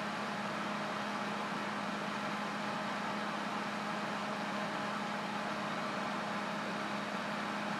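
A steady mechanical hum: one constant low tone with an even hiss over it, unchanging throughout.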